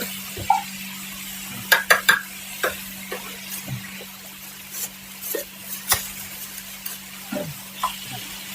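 Metal spatula clicking, tapping and scraping on a hot griddle, with faint sizzling, over a steady low hum. A quick run of sharp clicks comes about two seconds in, and single taps follow now and then.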